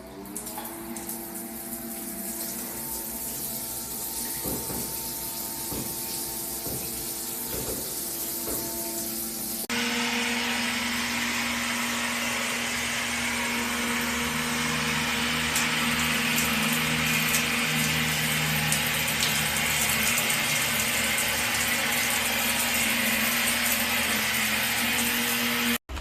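Shower water heater's built-in DC pump humming as it spins up, its pitch rising at first, over the hiss of water spraying from the shower head. About ten seconds in the spray suddenly turns louder and hissier, with a steady hum under it.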